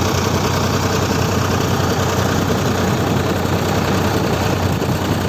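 Heavy earthmoving machine's diesel engine running steadily, with a constant low hum.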